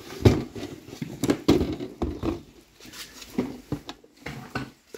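Handling noises from unboxing a flux-core welder: irregular clicks, knocks and light rattles as the machine and its wire compartment are opened and checked for the wire spool.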